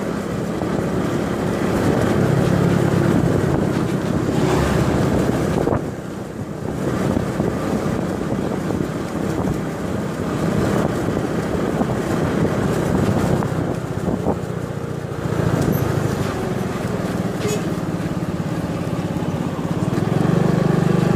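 Motor scooter running as it is ridden along a road, a steady low engine hum mixed with wind and road noise, easing briefly about six seconds in.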